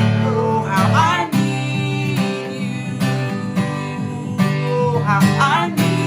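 Acoustic guitar strummed in a steady rhythm, about two strokes a second, with a voice singing two short wordless phrases, one near the start and one near the end.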